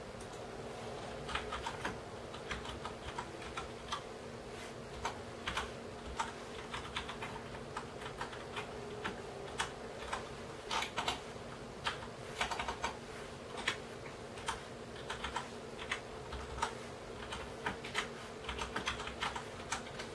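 Irregular light clicks, some single and some in quick runs, over a steady low hum.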